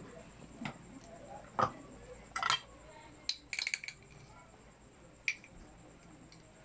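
Scattered light clinks and knocks of kitchen utensils and dishes, about half a dozen short hits spread over several seconds, with a quick flurry of clinks about three and a half seconds in.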